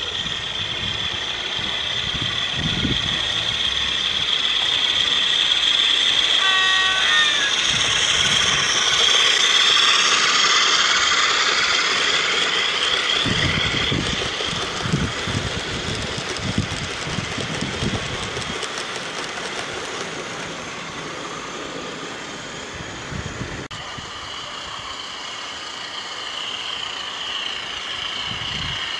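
Model diesel locomotive with a DCC sound decoder, playing a diesel engine sound through its small onboard speaker as it passes with a train of vans. The sound grows louder as it approaches, is loudest about ten seconds in, then fades. There is a brief horn toot about seven seconds in, and the wagon wheels click over the track while the vans go by.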